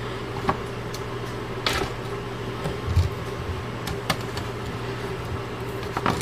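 Steady hum of a Salton food dehydrator's fan running, with scattered light taps and clicks as raw potato slices are laid onto a plastic dehydrator tray.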